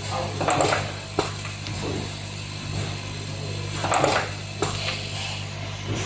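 Solid-pin four-point crimping machine with vibratory feeding bowl at work: a steady low hum, with two crimp cycles about three and a half seconds apart, each a short clattering burst followed by a sharp click.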